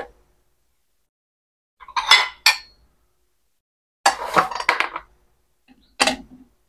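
Dishes and cutlery clinking and clattering as small plates and a knife are handled on a kitchen counter, in three short bursts about two, four and six seconds in.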